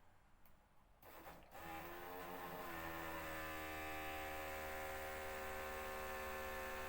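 Low-pressure electric fuel pump for a carburettor car, run from a car battery, starts about a second in. It settles into a steady buzzing hum, its pitch stepping up over the first couple of seconds. Primed with petrol, it is now pumping fuel, where dry it could only buzz without drawing.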